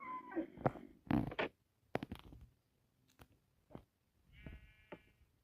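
A dog whining and whimpering: a short pitched whine at the start, a few short sounds, then one longer bleat-like whine about four and a half seconds in.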